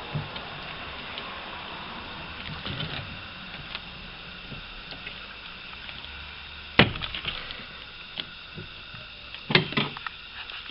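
A 10 mm spanner working a window-glass clamp bolt inside a car door: scattered light metal clicks and taps, with two sharp knocks about seven and nine and a half seconds in.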